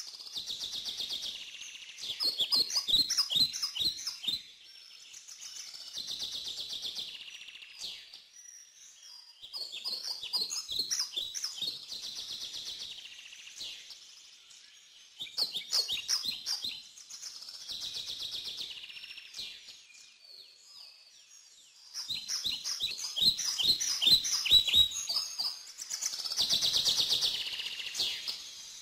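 Birds singing: bursts of rapid, high chirps every few seconds, between softer buzzy trills.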